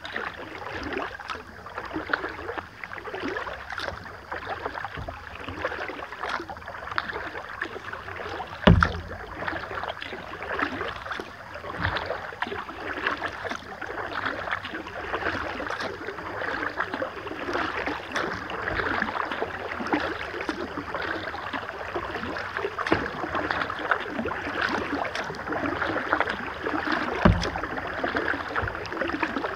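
Kayak paddling: water splashing and dripping off the paddle blades with many small ticks, with two dull thumps, one about nine seconds in and one near the end.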